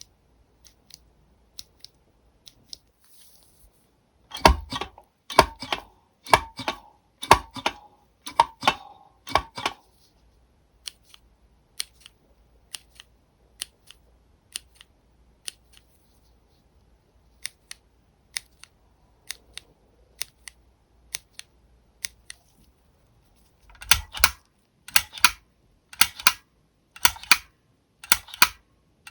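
Kailh mechanical keyboard switches pressed one at a time. Six loud, deep clacks come about a second apart, each with a low thud. A long run of faint, light ticks follows, then a second set of six loud clacks near the end. The first set is the linear Dark Yellow Big Switch fitted with a keycap, and the last set is the clicky Pale Blue Big Switch without one.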